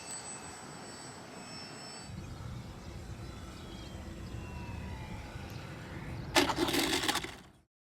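Distant whine of a small electric RC plane's motor and propeller, gliding up and down in pitch as it flies, over wind rumble on the microphone. About six seconds in, a loud rushing burst lasts under a second, then the sound cuts off.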